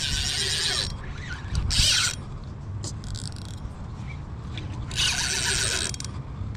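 Spinning reel being cranked to bring in a hooked fish, its gearing whirring in three short bursts: at the start, around two seconds in and around five seconds in.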